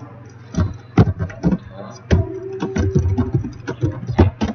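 Typing on a computer keyboard: a quick, irregular run of sharp key clicks and thuds close to the microphone, starting about half a second in.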